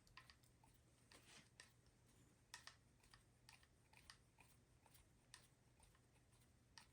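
Faint, irregular little clicks and ticks of a hand screwdriver driving small screws into a plastic RC truck bumper and cross brace.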